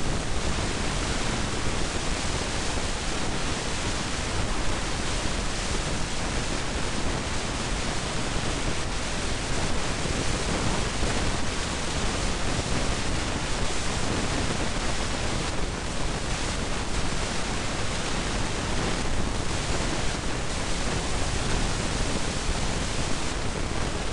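Loud, steady hiss spread evenly from low to high pitch: the recording's own background noise, with nothing else heard over it.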